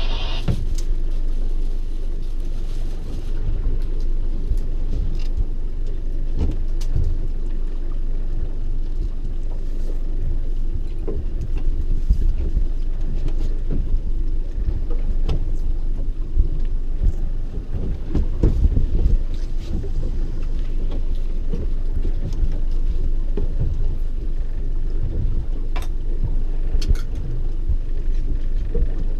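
Steady low rumble of a small boat on open water, broken by scattered short knocks and clicks, the loudest a little past the middle.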